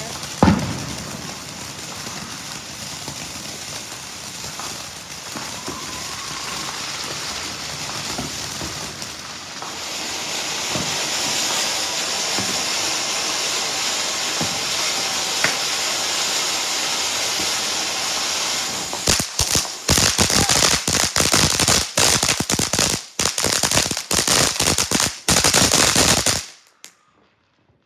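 Ground fountain firework spraying sparks with a steady hiss that grows louder about ten seconds in. In the last several seconds it breaks into a rapid string of sharp cracks, then cuts off suddenly.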